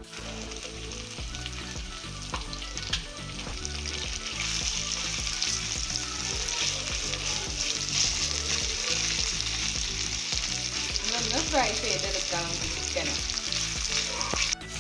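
Marinated boneless chicken pieces sizzling as they fry in hot oil in a pan, stirred now and then with a spatula. The sizzle grows louder about four seconds in.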